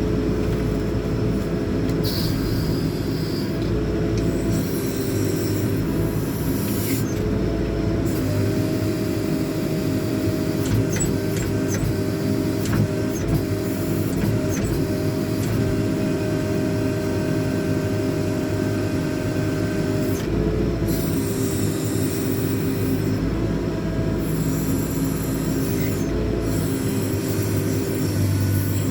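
JCB 4CX backhoe loader's diesel engine running steadily while the rear backhoe boom's hydraulics work, its note shifting a few times as the load changes.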